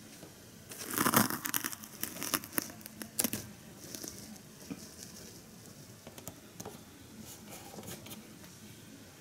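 Hands handling small plastic parts of a model building: a burst of rustling and crinkling about a second in, then a few sharp clicks and lighter scattered rustles.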